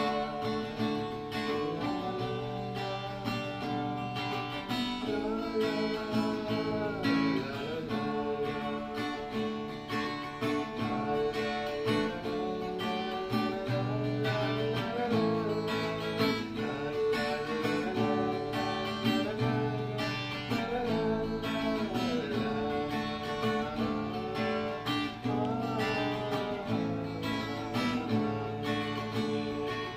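Acoustic guitar strummed in chords, with a wordless hummed melody gliding over it from about five seconds in.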